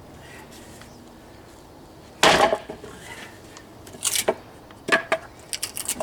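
Wooden parts of a dismantled swing knocking together: one loud wooden clunk about two seconds in, then several lighter knocks and clatters near the end.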